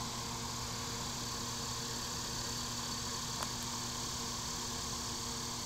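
Steady rush of water below a hydroelectric dam, with a steady low hum underneath from the dam's generators.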